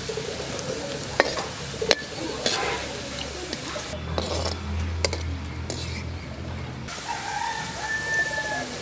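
Battered onion pakodas deep-frying in hot oil in an iron kadai, sizzling steadily. A slotted metal spoon scrapes and stirs through them, knocking sharply against the wok a few times.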